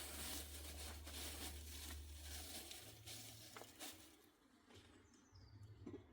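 Soft rustling and crinkling with many small clicks for about four seconds, then dying away to near quiet over a low steady hum.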